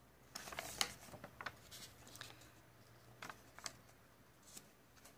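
Faint rustles and soft clicks of hands handling the paper pages of a sketchbook, a scatter of short sounds with the loudest about a second in.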